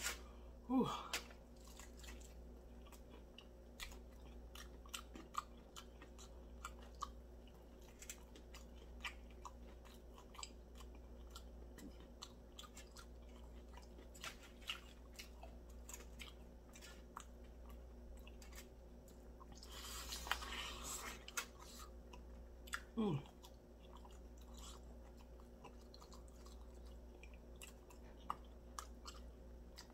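Close-miked chewing of a sticky, sauced chicken drumstick: faint wet mouth smacks and small clicks throughout. A short falling "mm" comes about a second in and again near the 23-second mark, and a brief rustle about 20 seconds in.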